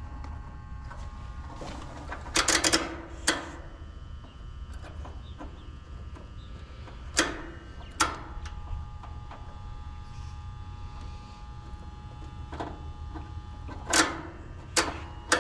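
An HVAC unit's contactor or relay clicking in and out at irregular intervals, over a steady electrical hum. The unit is cycling erratically after its low-voltage control wiring was disturbed.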